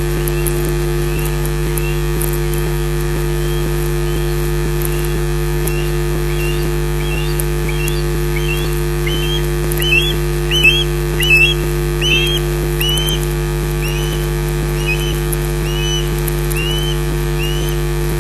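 Male osprey giving its sky-dance display call: a long series of short, arched whistled notes, a little more than one a second, loudest about halfway through. A steady electrical hum runs underneath.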